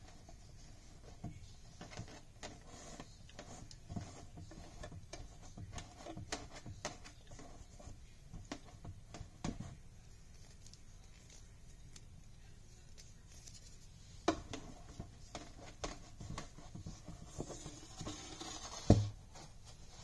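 Handling noise from faux fur being worked around a lampshade: light rustling with scattered taps and knocks, a sharp knock about two-thirds of the way through and a louder thump near the end.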